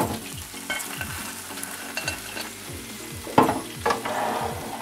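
Hot oil in an electric deep fat fryer sizzling as the wire basket of fried chicken is lifted out, with a few knocks of the basket and handle, the loudest about three and a half seconds in.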